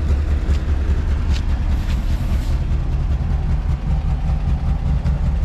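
1970 Porsche 914's air-cooled flat-four idling through a custom stainless steel header and exhaust, a steady deep pulse. The engine is cammed, so the idle is a little lumpy.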